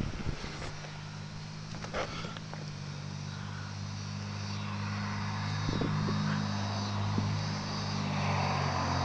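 A distant engine drones with a steady, even hum that slowly grows louder. A few faint rustles and knocks about two seconds in come from the rifle being moved.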